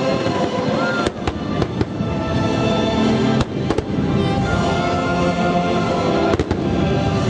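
Fireworks bursting in a series of sharp bangs and crackles over loud music playing throughout, with clusters of bangs about a second in, midway and near the end.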